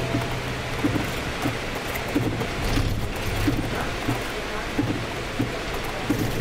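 Scania City Wide bus driving in heavy rain, heard from the driver's cab: a steady low engine and road hum under a hiss of rain and wet-road spray. A soft tick repeats about every two-thirds of a second.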